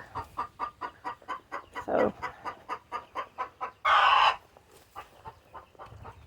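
Hens clucking: a quick, even run of short clucks, about five a second, for nearly four seconds, with a louder, harsh call about four seconds in.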